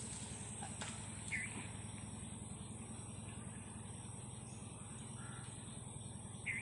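Quiet outdoor ambience over a steady low hum, with a few short bird chirps, one about a second in and another near the end.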